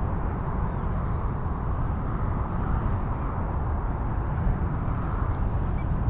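Outdoor field recording dominated by a low, steady wind rumble on the microphone, with a few faint, short high bird calls in the distance.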